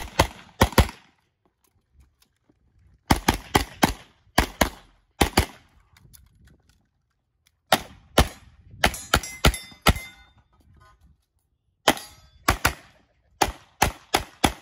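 Rapid pistol fire from a 9mm CZ Shadow 2 Optics Ready, shots coming in quick pairs and short strings with pauses of one to two seconds between groups.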